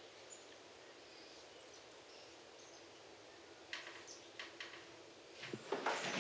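Quiet room ambience with faint bird chirps from outside. A few light clicks come about four seconds in, and a louder rustle near the end.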